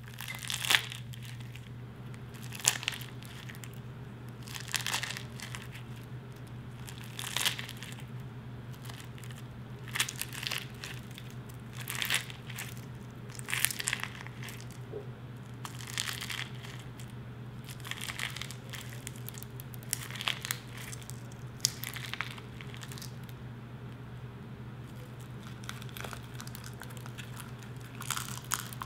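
Crunchy slime packed with small plastic beads, crackling and crunching each time a fingertip presses into it in a tub, in separate short bursts about every two seconds.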